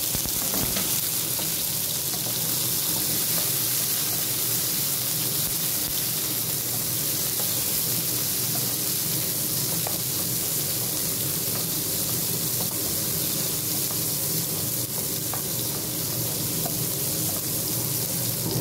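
Onion, garlic and tomato sautéing in hot oil in a frying pan: a steady sizzle with scattered small crackles, stirred now and then with a wooden spatula.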